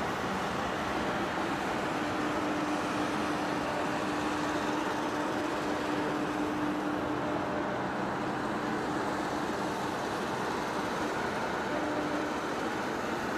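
A heavy-duty face lathe running: steady machine noise with a faint hum that fades in and out.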